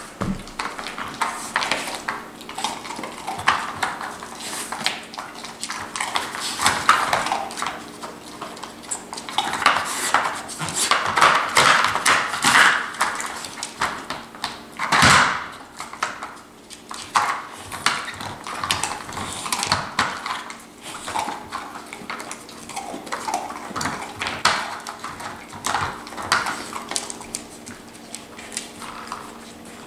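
Dogs working a plastic treat-puzzle board with their noses and paws, its sliding lids and bone-shaped pegs clacking and rattling against the tray in irregular bursts of knocks and clicks.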